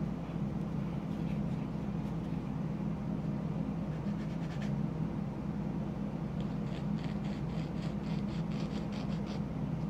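A small plastic model-kit part sanded on a fingernail buffing stick, with faint quick scratchy rubbing strokes that come in a clearer run near the end. A steady low hum runs underneath.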